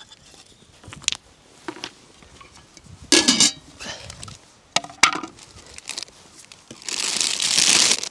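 Objects being handled at close range: scattered knocks and clinks, with louder clatters about three and five seconds in, then about a second of steady rustling near the end.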